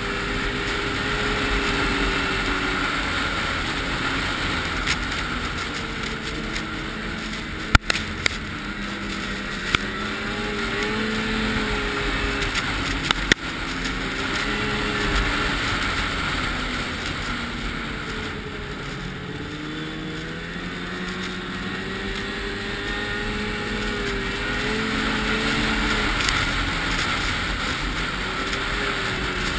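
Vehicle engines running, their pitch rising and falling as the throttle changes, over a steady rumble, with a few sharp clicks about a quarter and half of the way through.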